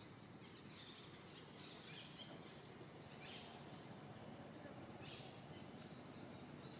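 Quiet outdoor ambience: a steady faint hiss with a few soft, short high chirps scattered through it.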